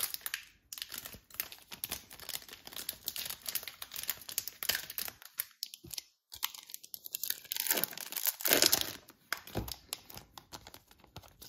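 Foil wrapper of a trading card pack crinkling and tearing as it is handled and ripped open, with a louder burst of crackling about eight to nine seconds in.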